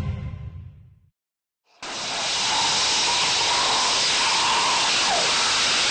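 Rocket engine of the RVT reusable rocket test vehicle igniting about two seconds in and firing as a loud, steady hiss. Before it, the tail of intro music fades out into a moment of silence.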